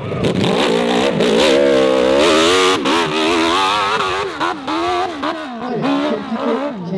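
Racing motorcycle engine at high revs, its pitch climbing and dropping again and again with gear changes and throttle.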